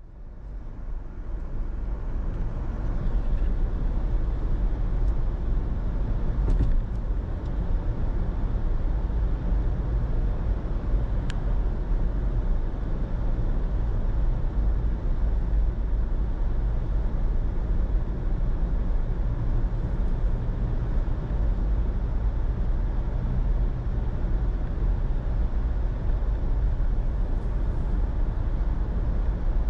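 Car driving on city roads: a steady low rumble of road and engine noise that fades in over the first couple of seconds.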